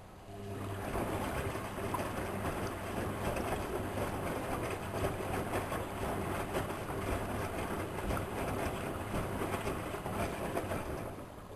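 Whirlpool Expert 1000 washing machine running, with water rushing and sloshing over a low hum. It starts suddenly just after the beginning and eases off near the end.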